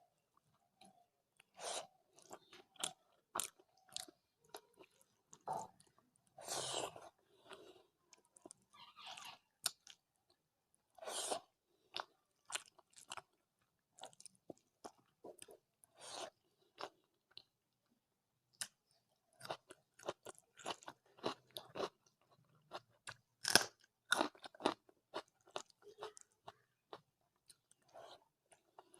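Close-miked chewing and eating of rice with curry: irregular wet mouth clicks, smacks and short crunchy bites, several a second at times, with brief pauses between mouthfuls.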